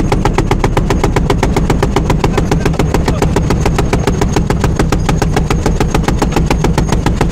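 A boat-mounted .50-calibre heavy machine gun firing one long unbroken burst, about ten shots a second, evenly spaced. A steady low engine drone runs underneath.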